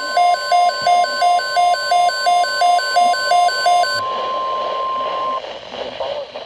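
Weather-radio emergency alert: a rapid two-pitch alarm beep, about three a second, over the steady 1050 Hz NOAA weather alert tone. The beeping stops about four seconds in and the alert tone cuts off a second later, leaving radio hiss before the tornado watch message.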